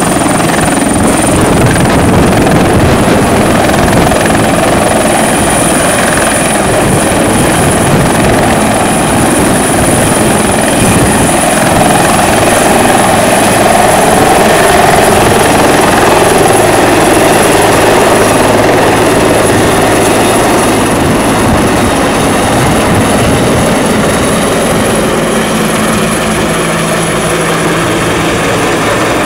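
Bell 412 twin-turbine helicopter at take-off power, lifting off and climbing away: steady rotor noise under a high steady turbine whine.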